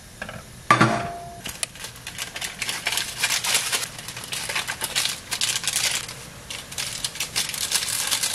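Instant noodles being cooked in a pot on a gas stove. A utensil clanks against the pot about a second in, then there is a dense run of quick clicks and crackles as the seasoning powder is shaken onto the hot noodles.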